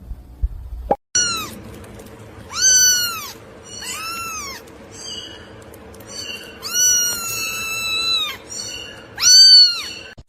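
Domestic cat meowing repeatedly: about five loud meows with several softer ones between, one of them drawn out for over a second, the loudest near the end.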